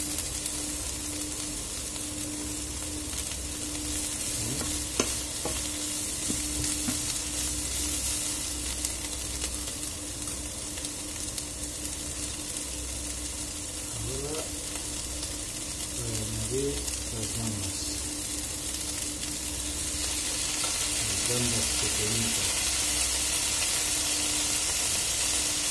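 Diced onion and broccoli sizzling in olive oil in a non-stick frying pan, stirred and scraped with a wooden spatula so they don't burn. The sizzle grows a little louder over the last few seconds.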